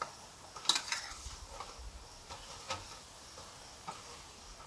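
A few light clicks and taps over a faint steady hiss, with a quick cluster of clicks about a second in and single ticks after.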